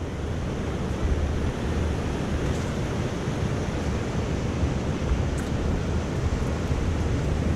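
Sea surf washing onto the beach, a steady rushing noise, with wind buffeting the microphone in a low rumble.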